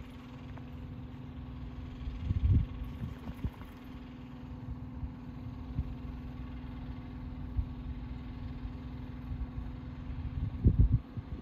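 Steady low hum of idling engines, as from semi trucks parked with their engines running, with two louder low rumbling thumps, about two seconds in and near the end.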